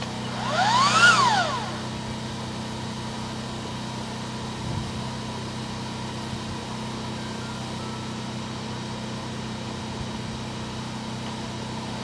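Motor-driven drain-cleaning chain machine speeding up and winding back down once about a second in, then a steady low motor hum.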